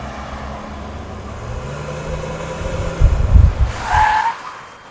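Volvo C30 driven fast, its engine running and rising in pitch as it speeds up. There are a few heavy thumps about three seconds in, then a short tyre squeal near four seconds.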